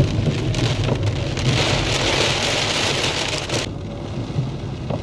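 Rain hissing on a moving car, over a steady low rumble of the engine and tyres on a wet road. The rain hiss drops away suddenly about three and a half seconds in, leaving the rumble.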